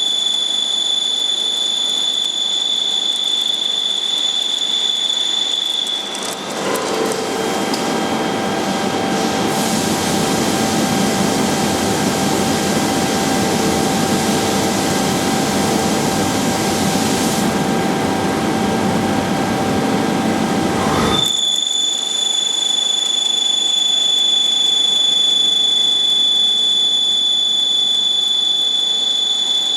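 Leadwell V-60iT 5-axis CNC machining centre running: a steady high-pitched whine, then a loud rough noise from about six seconds in that cuts off suddenly some fifteen seconds later, after which the whine returns.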